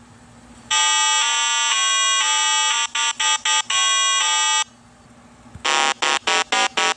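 Synthesized buzzy electronic tones: a string of held notes stepping up and down in pitch, then, after a short pause, a quick run of short beeps, about four a second.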